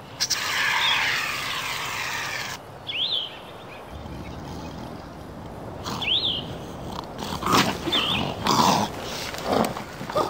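An aerosol can of shaving cream sprays in one long hiss lasting a couple of seconds. A bird chirps twice, then a sasquatch creature effect growls and roars in loud bursts near the end as it wakes.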